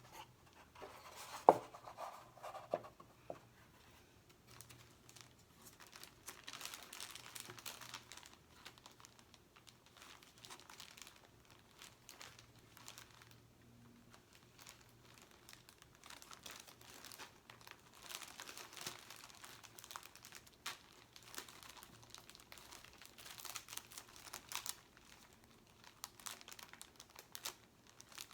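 Stickers and their sheets being handled, crinkling and peeling from their backing in irregular bursts, with a sharp tap about a second and a half in.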